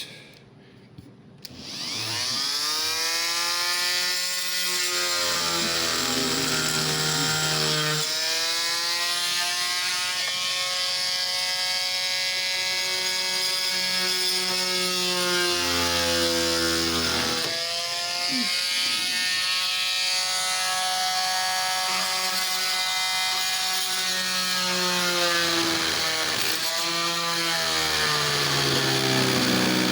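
An oscillating multi-tool starts about a second and a half in and runs as a loud, steady buzzing whine while it saws into wood. Its pitch sags twice and recovers as the blade loads up in the cut.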